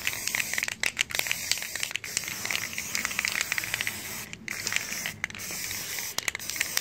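Aerosol spray-paint can hissing in repeated bursts, with short breaks between them.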